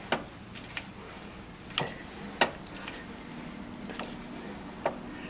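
A handful of sharp clicks and knocks, a second or so apart, from a snowblower's chute-control handle and cable-driven chute being worked. The newly repaired chute rotation is being tested.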